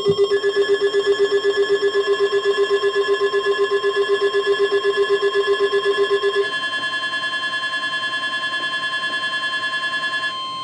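Weather alert receivers sounding their warning alarms together, announcing a new severe thunderstorm warning. Several steady high tones play at once, overlaid with a fast beeping of about seven beeps a second. The beeping stops about two-thirds of the way through, and the remaining tones cut off together shortly before the end.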